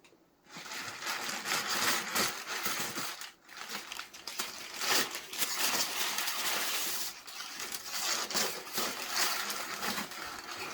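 Packing material rustling and crinkling in irregular bursts as it is pulled and crumpled out of a shipping box, starting about half a second in, with a brief pause a little after three seconds.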